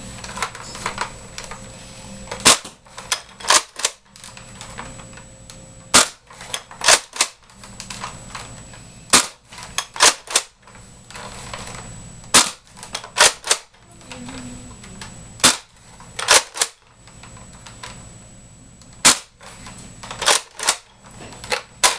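Nerf Longshot spring blaster firing six foam darts about three seconds apart. Each shot is a sharp snap, followed about a second later by two or three lighter clicks as the bolt is pulled back and pushed forward to prime the next shot. The bolt is worked once more near the end.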